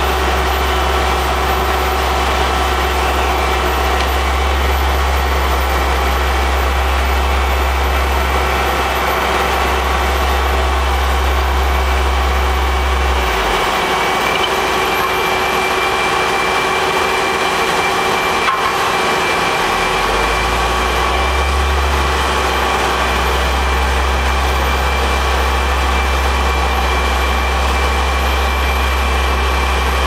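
Heavy diesel paving machinery running steadily: an Aztec SB-2500 material transfer vehicle feeding a CAT 1055D asphalt paver as it lays base mix, a steady engine hum with several steady mechanical tones. The lowest rumble drops away for a few seconds midway, then returns.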